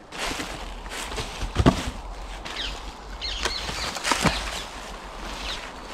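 Wind rumbling on the microphone outdoors, with two dull knocks of dry logs being handled from a firewood pile, one about one and a half seconds in and one about four seconds in, and small birds chirping.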